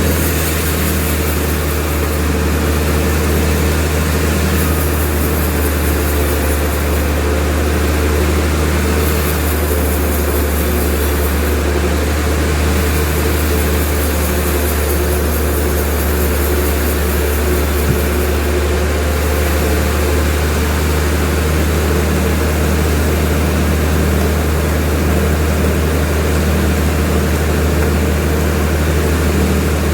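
Sawmill machinery running steadily with a loud, deep drone and constant hum. A higher hiss comes and goes several times in the first half.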